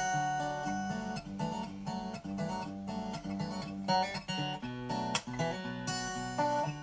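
Background music: an acoustic guitar arrangement, plucked and strummed notes.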